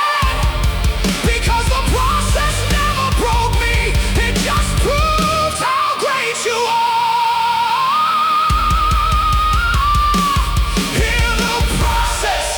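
Loud rock music without vocals: pounding drums and bass under a lead melody with wide vibrato. The drums and bass drop out for about three seconds in the middle, then come back in.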